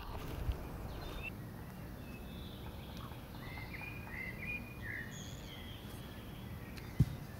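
Faint birdsong over a quiet woodland background, then, near the end, a single sharp impact of a thrown steel knife striking the wooden log target.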